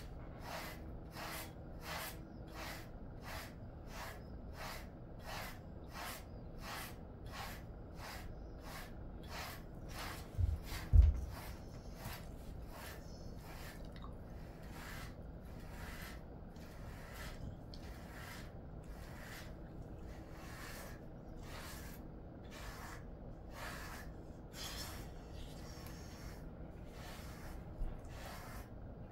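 Grooming brush raking through a dog's coat in short, regular strokes, about one and a half to two a second, sparser in the second half. Two low thumps about ten seconds in are the loudest sounds.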